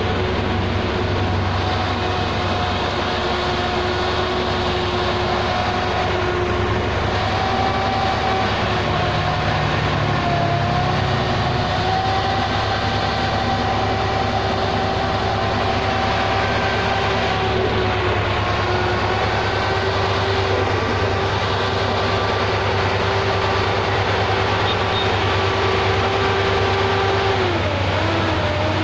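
LUF 60 firefighting robot's diesel-driven turbine fan running at full power, blasting a jet of water mist: a steady, loud drone with a high whine. The whine dips in pitch near the end.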